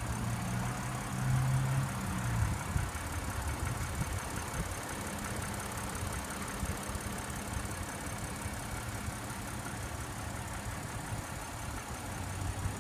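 Supercharged 3.0-litre V6 of an Audi Q7 idling steadily: a low, even hum, a little louder in the first couple of seconds.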